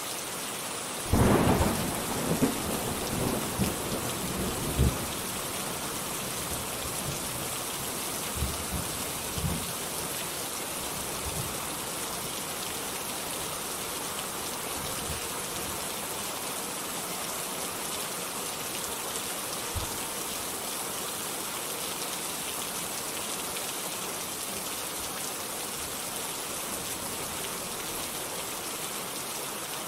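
Steady heavy rain hissing throughout, with a loud clap of thunder about a second in that rumbles on for several seconds, and fainter rolls of thunder a few seconds later.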